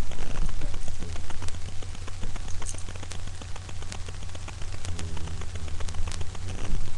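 Dense crackling and scratching from a small dog scuffling with a plush toy on fabric close to the microphone, over a steady low electrical hum.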